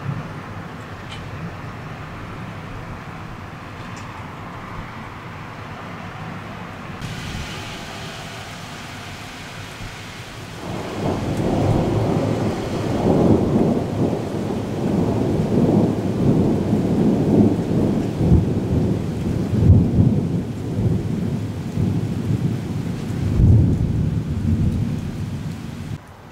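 Thunderstorm: a steady hiss of rain, then about ten seconds in a long rolling peal of thunder builds up and rumbles on, with two heavier cracks near the end.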